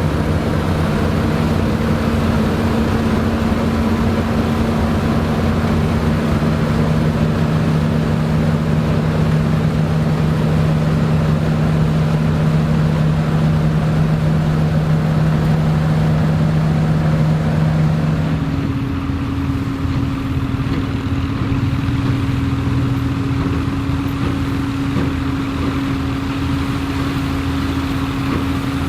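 Vintage Dronningborg D2600 combine harvester running steadily, its engine and machinery giving a constant drone. About two-thirds of the way in the note shifts to a higher steady hum and the sound gets a little quieter.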